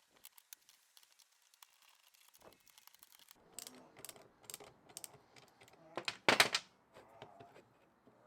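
Scattered light clicks and rattles of small hard parts being handled, with a louder, noisy scrape lasting about half a second a little after six seconds in.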